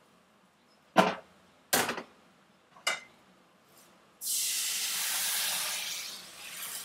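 Three sharp clanks of cookware in a stainless-steel sink, then a loud hiss as water hits a hot frying pan and flashes to steam, fading over the last couple of seconds.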